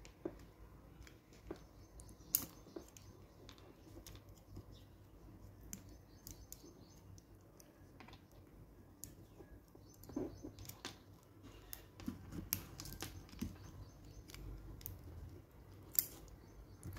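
Faint, irregular clicks and taps of plastic LEGO Technic beams and pin connectors being handled and pressed together, with a sharper click about two seconds in and another near the end.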